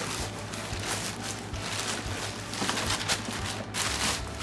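Paper packing wrapping rustling and crinkling in irregular bursts as it is pulled off the boxed fridge.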